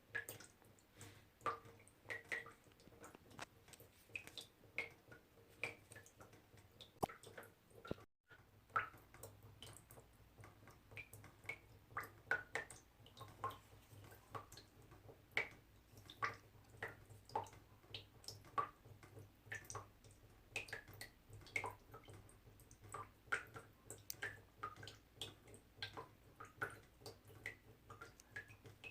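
Small water droplets dripping irregularly, a few short pitched plinks a second, with a brief cut-out about eight seconds in.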